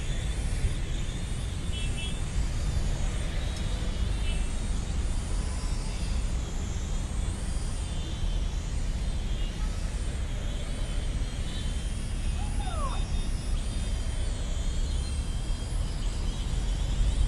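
Small toy quadcopter drone flying, its propellers giving a high whine that wavers up and down in pitch as the throttle changes, over a steady low rumble.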